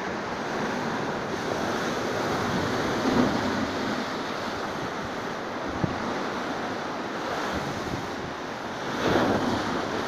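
Steady rushing noise of surf from a stormy sea, with wind buffeting the microphone. There is one brief knock about six seconds in.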